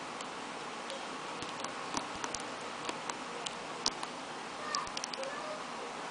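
Scattered light clicks and taps at irregular times from items being handled during an unboxing, over a steady hiss.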